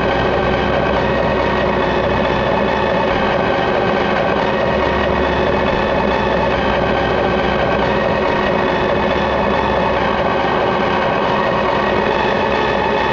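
JCB 8080 ZTS excavator's diesel engine running steadily under load, heard from inside the cab, while the hydraulic arm works the bucket through topsoil.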